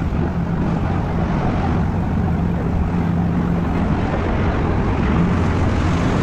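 Ferry boat's engine running with a steady, even hum.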